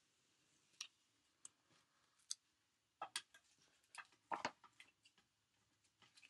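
Faint, scattered clicks and light scrapes of fingers handling a cardstock card panel on a work mat, picking at and turning the card to lift its paper mask. The clicks bunch together a few seconds in.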